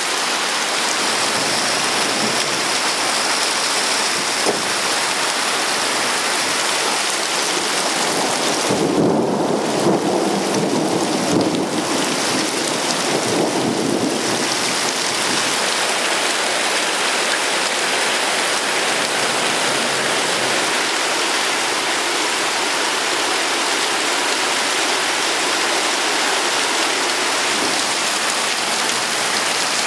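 Steady heavy rain falling, with a roll of thunder about nine seconds in that rumbles for about five seconds in two swells before the rain alone carries on.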